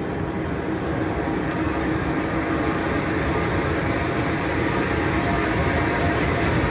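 GWR Castle-class steam locomotive and its train approaching along the track, a steady rumbling noise that grows gradually louder as it comes nearer.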